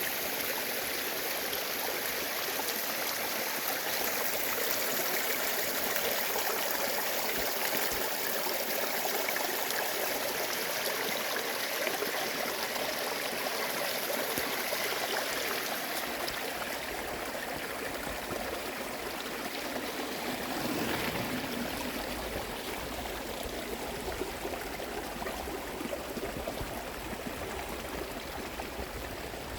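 Mountain stream babbling and trickling over rocks, a steady rush of water.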